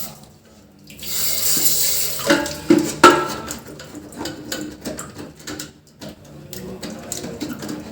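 Handheld toilet jet spray hissing as it washes scale deposits off the rubber washer of a flush tank valve, the build-up that lets water leak past into the bowl. A few sharp knocks about two to three seconds in as the plastic fitting is handled.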